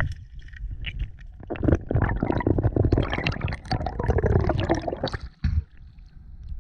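Water gurgling and bubbling, with a dense run of small clicks and crackles through the middle.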